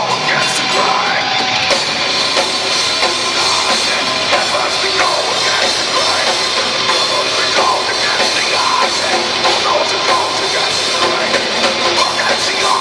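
A heavy metal band playing live, loud, with drums and guitars.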